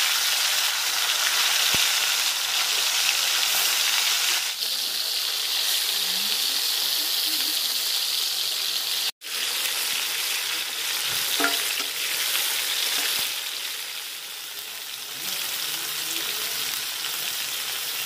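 Lote fish (Bombay duck) pieces sizzling hard as they fry in hot mustard oil in a wok, the soft, watery fish still giving off moisture into the oil. In the second half a spatula moves through the pieces, with a few light taps against the pan. The sound cuts out for an instant about halfway through.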